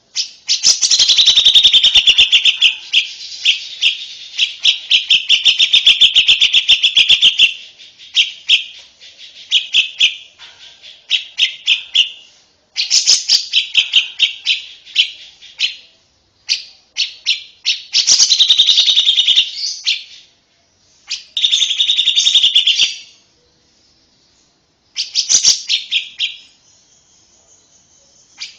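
Lovebird singing: phrases of fast, high chattering trills. The first phrase is the longest, about seven seconds, and the later ones are shorter, broken by brief pauses, with a near-silent gap a few seconds before the end.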